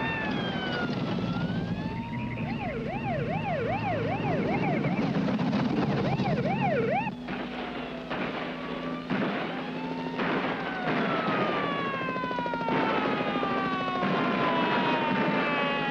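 Police car sirens over the steady running of car engines: a slow wail, then a fast yelp for several seconds, and in the second half several siren tones sliding slowly downward at once.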